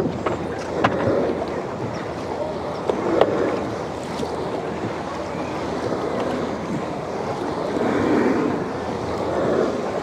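Wooden canoe paddles pulling through river water, a swishing swell of splashes every second or two, with a few light knocks.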